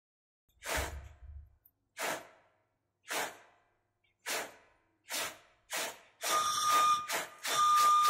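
Foley recreation of a passing train: rhythmic chuffs, about one a second and quickening. From about six seconds a fast clatter starts, joined by a steady high whistle-like tone.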